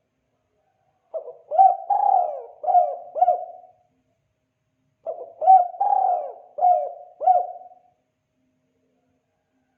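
Spotted dove (tekukur) cooing: two phrases of about five notes each, a few seconds apart.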